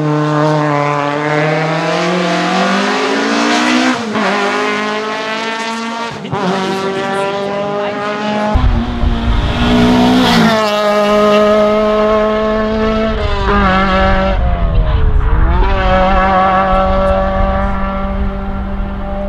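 The 1997 VW Golf 3 Kit Car's naturally aspirated 2.0-litre four-cylinder rally engine at full throttle. The revs climb and break at quick upshifts about four, six and ten seconds in, then hold at steady high revs as the car pulls away. It fades near the end.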